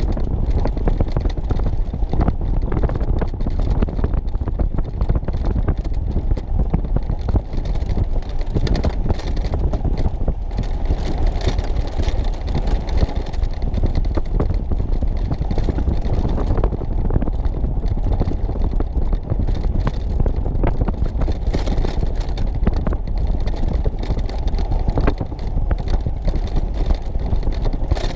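Vehicle driving over a rough off-road trail on an old railway bed: a steady low rumble of engine and tyres with many small knocks and rattles, and wind buffeting the microphone.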